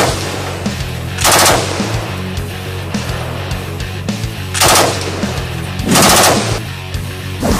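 Belt-fed machine gun firing three short bursts of automatic fire: about a second in, near five seconds, and about six seconds in, over background music with a steady beat.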